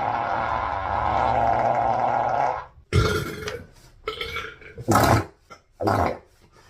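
A person's long, drawn-out burp lasting about three seconds, cutting off, then several short, sharp bursts of sound.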